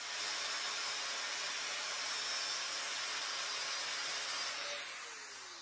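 Angle grinder grinding the steel end of an exhaust pipe, a steady grind. About four and a half seconds in it is switched off and winds down with a falling whine.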